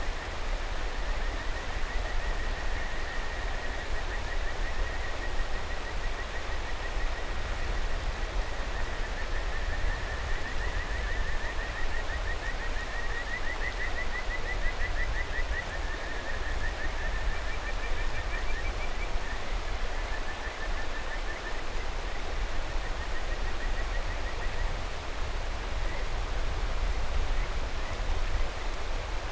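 Kajika frogs (Buergeria buergeri) calling in rapid, pulsed trills over the steady rush of a mountain river, with two frogs overlapping at one point; the trilling thins to a few scattered notes near the end.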